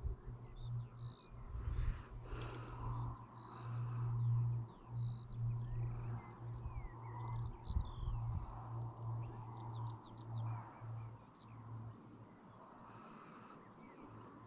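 Small birds chirping, with many quick sweeping notes, over a low hum that comes and goes.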